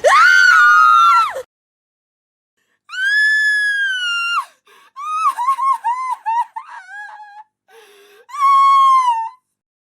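Girls screaming in fear: a series of separate high-pitched screams with silent gaps between them. A long scream opens, a second follows about three seconds in, then a run of short broken cries, and a last scream falls in pitch near the end.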